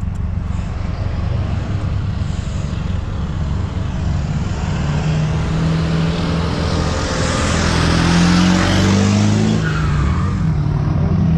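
Car engine running with a low rumble, then accelerating hard from about five seconds in, revs climbing with a rising rush of engine and exhaust noise. The revs drop briefly just before ten seconds, as in a gear change, and climb again near the end.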